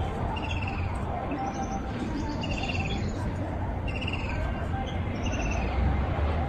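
Songbirds calling: short trilled chirps repeated about once a second, some higher-pitched than others, over a steady low rumble.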